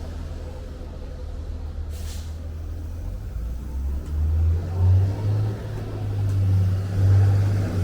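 Low rumble of street traffic, swelling from about halfway through as a heavier vehicle draws near, with a short hiss about two seconds in.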